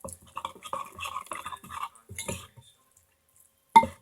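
Close-up eating sounds of a mouthful of vegetable soup: small wet slurping and chewing noises over the first two seconds or so. Near the end comes a single sharp clink, such as a spoon against the bowl.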